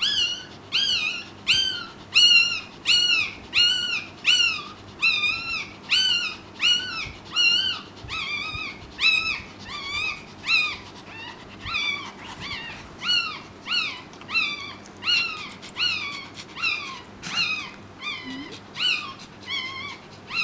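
Pekingese whimpering: a steady run of short, high-pitched cries, each rising then falling in pitch, about three every two seconds.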